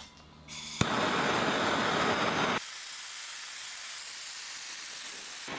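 Handheld gas torch lit with a click about a second in, then burning with a loud, steady rush of flame while scorching pine for a burnt-wood finish. About two and a half seconds in it cuts abruptly to a quieter, thinner hiss.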